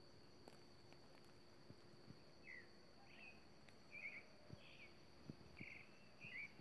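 Faint outdoor natural ambience: a steady high insect drone, with several short bird chirps in the second half.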